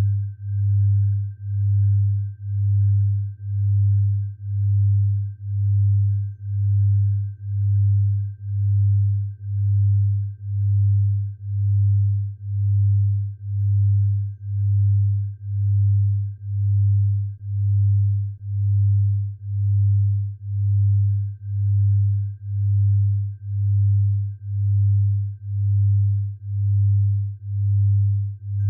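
Low electronic sine tone for tinnitus sound therapy, swelling and fading about once a second, with a faint steady higher tone held underneath.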